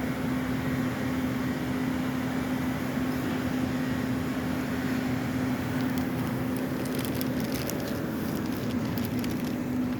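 Elevator car travelling down: a steady hum with one low tone, a few small clicks and rattles in the second half, and the tone cutting out right at the end.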